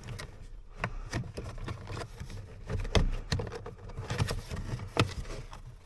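Plastic steering-column trim and its rubber boot being handled and pushed into place: scattered clicks, taps and light knocks over a low steady hum.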